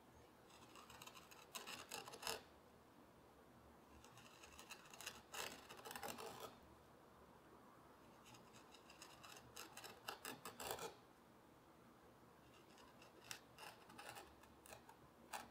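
Hand carving chisel cutting grooves into walnut: four spells of quick, short scraping cuts, each lasting a couple of seconds, with brief pauses between.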